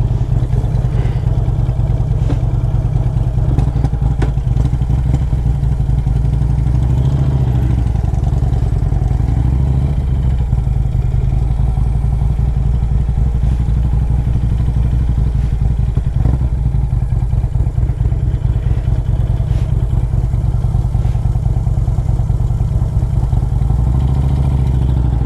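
2007 Harley-Davidson Road Glide's Screaming Eagle 113-cubic-inch V-twin engine running on the road, heard from the rider's seat. The engine note shifts with the throttle a couple of times.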